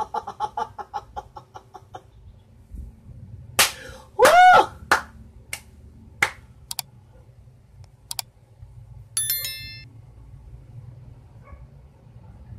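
A man's wordless, emotional vocal reaction: a quick run of short laugh-like cries, then one loud high squeal that rises and falls about four seconds in. Several sharp hand claps are spaced irregularly through the middle, and a short bright tone comes at about nine seconds.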